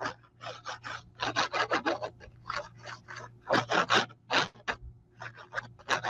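Adhesive being run onto card stock in quick, repeated scraping strokes, several a second, with brief pauses.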